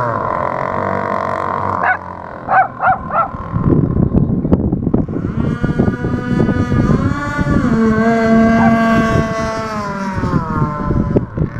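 Radio-controlled speedboat's motor whining as it speeds across floodwater, its pitch rising and falling with throttle and turns. A few short honks sound about two seconds in, with a rough rumbling noise underneath from a little later on.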